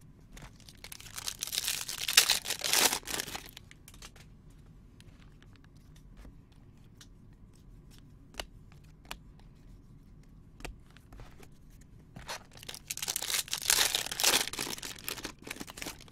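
Trading-card pack wrappers being torn open and crinkled, in two bursts, the first near the start and the second a few seconds before the end, with light clicks of cards being handled in between.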